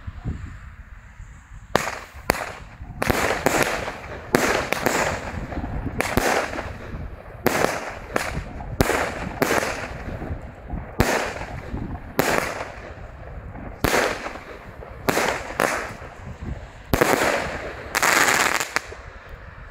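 A 16-shot, 20 mm consumer firework cake (Superior Fireworks 'Survivor') firing its shots one after another. Loud bangs from the tubes and the bursting shells come about one or two a second, each trailing off briefly. The run starts about two seconds in and ends with one longer, louder burst near the end.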